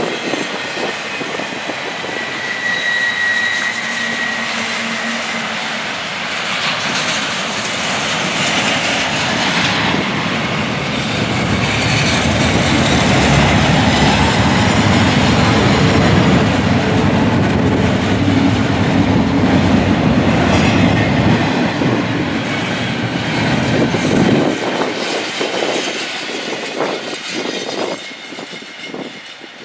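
A train rolling past, its wheels running on the rails. It grows louder toward the middle and falls away sharply about 25 seconds in.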